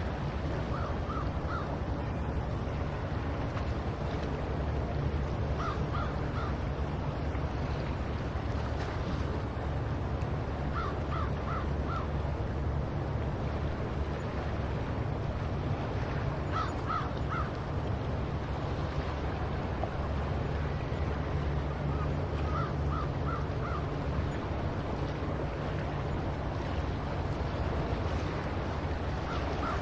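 Seagulls calling in short groups of three quick notes, six times, about every five to six seconds, over a steady low rumble.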